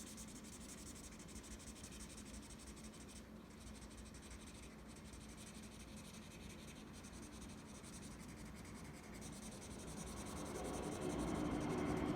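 Continuous scratchy rubbing of a colouring tool scrubbed back and forth on paper as a drawing is coloured in, growing louder over the last couple of seconds.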